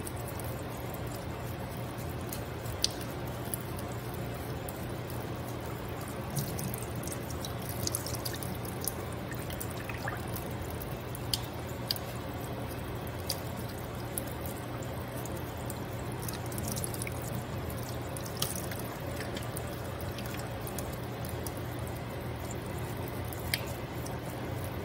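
Tap water running and dripping into a stainless steel sink, with scattered sharp clicks as a knife scrapes the scales off a salmon fillet's skin.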